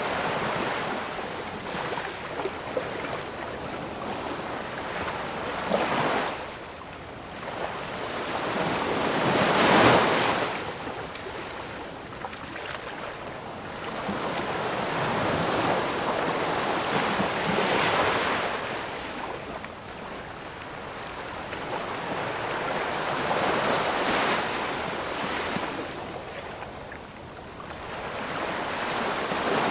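Ocean waves breaking on a shore, the surf rising and falling in a slow swell every several seconds, with the biggest wave breaking about ten seconds in.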